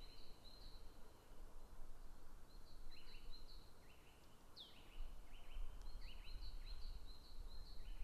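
Black woodpecker calling: runs of short, quickly repeated notes, broken by pauses of a second or two.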